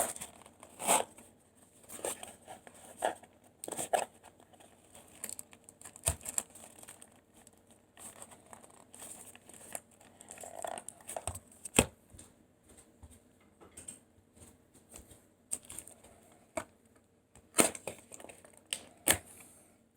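Packaging being handled during an unboxing: plastic crinkling and rustling, with scattered small clicks and knocks.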